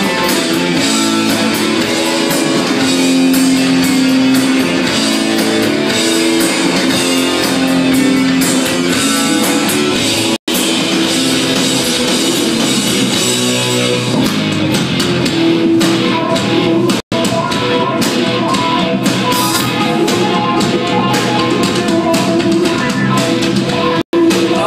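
Rock band playing live, guitar to the fore over drums, in a passage without singing. The sound cuts out for an instant three times.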